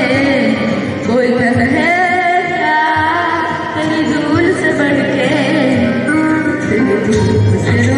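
A boy with an unbroken voice singing a Hindi patriotic song into a handheld microphone, holding and bending long notes.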